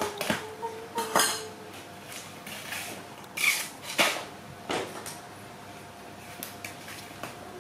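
A few scattered clatters and knocks of household items, the loudest about a second in and between three and a half and five seconds in.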